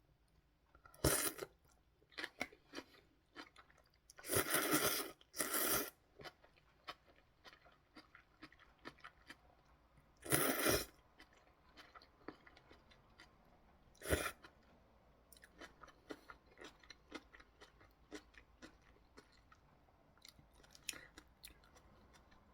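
Close-up eating sounds: crunchy chewing of kkakdugi radish kimchi, with many soft chewing clicks and a few louder noisy bites about a second in, around four to six seconds, at ten seconds and at fourteen seconds.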